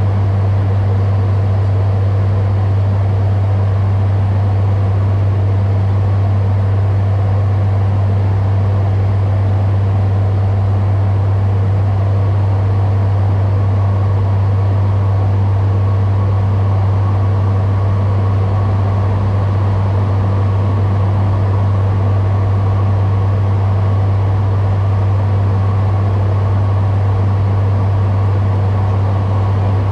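Steady cockpit drone of an ATR 72-600 in flight on descent: the PW127M turboprops and six-bladed propellers give a strong, unbroken low hum over an even rushing hiss of airflow.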